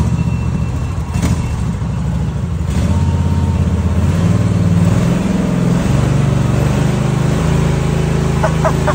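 Riding lawn mower's small engine running with a low drone, its speed shifting a few times.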